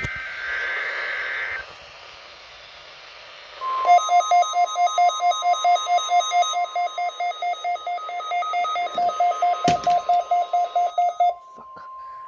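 NOAA Weather Radio alert signalling heard off a radio: a short two-tone SAME data burst at the very start, then about three and a half seconds in the steady 1050 Hz warning alarm tone comes on and holds to the end. Over most of the tone a rapid alarm beeping runs at about five beeps a second, stopping shortly before the end, with a single click near the end.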